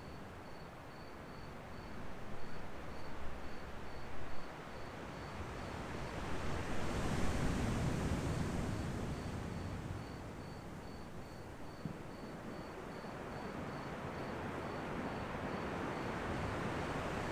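Ocean surf washing in, swelling to a louder wave about seven seconds in, with a cricket chirping steadily about three times a second over it.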